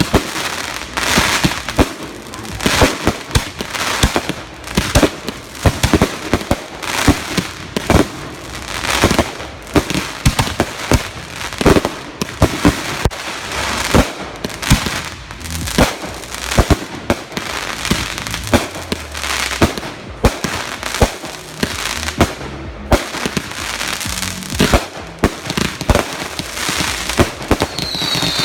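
Consumer fireworks going off in a rapid, unbroken run of sharp bangs and crackles, several a second.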